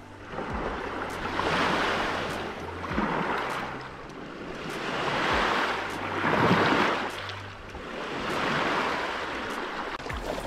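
Small lake waves washing up onto a cobble-and-pebble beach. Each wave swells and fades, about five in all, one every two seconds or so.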